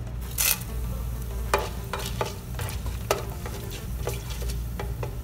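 Whole spices (bay leaves, black peppercorns, cloves, green cardamom) hitting hot oil in a nonstick pan, a burst of sizzling about half a second in, then frying on while a spatula stirs them, with scattered sharp clicks.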